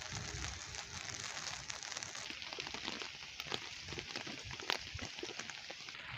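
Steady rain falling, with irregular ticks of drops hitting nearby surfaces and one sharper drip near the end.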